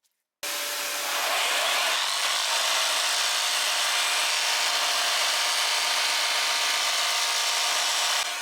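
Jigsaw mounted in a jigsaw table, started suddenly about half a second in and running steadily while sawing through wood: a constant motor whine under a harsh sawing hiss.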